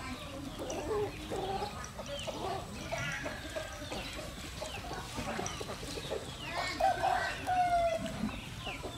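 Chickens clucking and calling in short, varied bursts, with one longer held call, the loudest, a little past halfway, and light bird chirps above.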